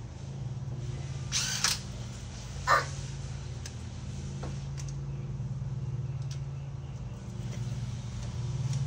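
A small motor running with a steady low hum and a fast rhythmic pulse, louder near the end. A short hiss comes about a second and a half in, and a brief squeak near three seconds.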